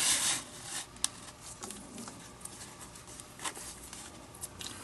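Leather lace drawn through the lacing holes of a Mizuno baseball glove's web: a short rasping pull at the start, then faint rubbing and a few small clicks as the lace is threaded by hand.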